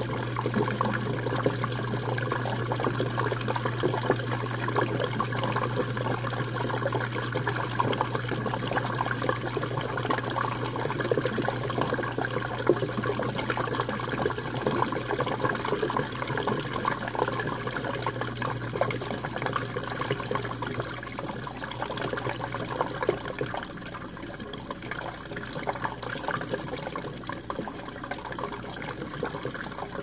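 Jenn-Air dishwasher late in its Quick Wash cycle: water splashing and trickling inside the tub over a steady low pump hum. The hum fades out about three-quarters of the way through while the water sound goes on more quietly.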